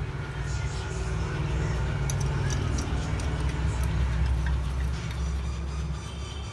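Small metal screw being threaded by hand into the metal base plate of a camera stand, giving a few faint clicks over a steady low hum.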